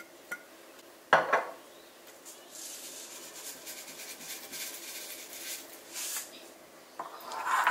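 A sharp knock on the counter about a second in, then sesame seeds shaken from a plastic shaker pattering into a ceramic bowl for about four seconds, with another knock near the end.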